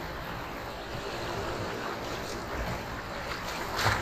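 Fast river water rushing and churning around a kayak's hull as it runs whitewater rapids, with splashes against the bow, the loudest near the end.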